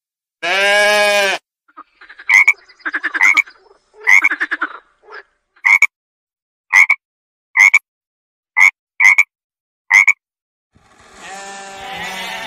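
Frog croaking: a run of short, sharp croaks about one a second. A single drawn-out animal call comes before them near the start, and another long call begins near the end.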